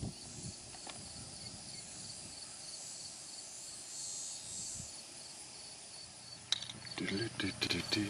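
Steady high-pitched insect chorus with a pulsing chirp. From about three-quarters of the way in, a low engine hum from a distant approaching tractor comes in, along with a few clicks and knocks.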